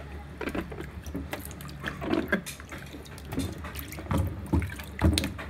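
Water sloshing and splashing as hands rub and swish apples and bell peppers around in a sink full of bicarbonate-of-soda wash water, with a few dull knocks near the end.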